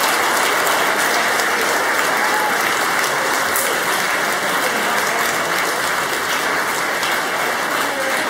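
A roomful of people applauding steadily, easing slightly near the end.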